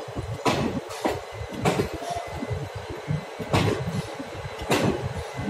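Indian Railways ICF passenger coaches rolling past close by, with a low rumble and sharp wheel clacks over the track coming at uneven intervals.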